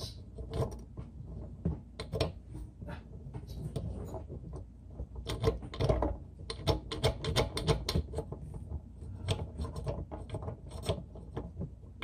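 Rapid, irregular clicks, taps and rattles of a kitchen faucet's pull-out spray hose being pushed and worked up through the faucet body from under the sink. They are busiest about five to eight seconds in.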